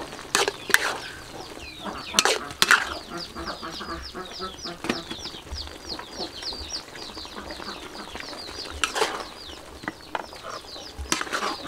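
A metal ladle clanks and scrapes against a wok in sharp knocks, a few near the start and again near the end. Between them a bird chirps rapidly, several short falling peeps a second.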